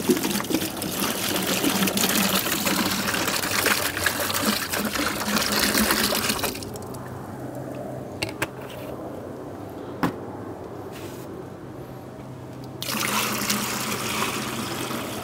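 Water pouring from a plastic jug into a plastic bucket of dry brine mix, splashing as the bucket fills. The pour stops about six seconds in, a couple of light knocks follow, and pouring starts again near the end.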